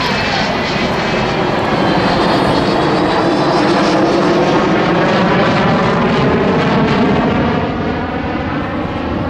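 Avro Vulcan XH558 flying past, its four Rolls-Royce Olympus turbojets running loud and steady, the sound swelling through the middle and easing a little near the end.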